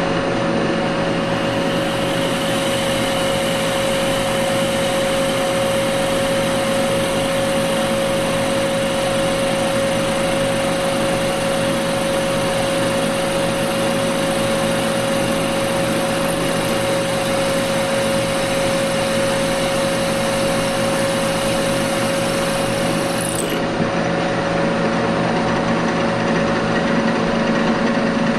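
Milling machine spindle running steadily with a 5 mm twist drill cutting tapping holes into a cast bearing block, under a steady motor hum. The high hiss drops away suddenly about 23 seconds in.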